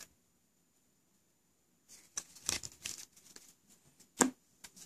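About two seconds of silence, then paper trading cards and foil pack wrappers being handled: uneven rustling and crinkling, with a sharp tap near the end.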